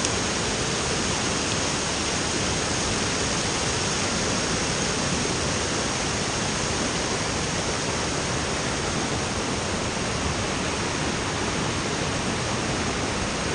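Water pouring over a spillway's low dam: a steady, unbroken rush of falling water.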